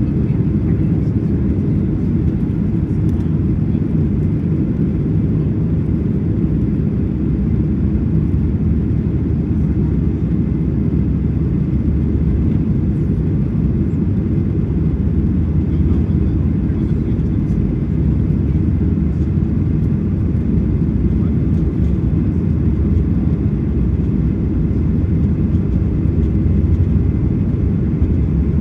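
Boeing 737 MAX 8 engine noise heard inside the passenger cabin, a steady low rumble that does not rise or fall.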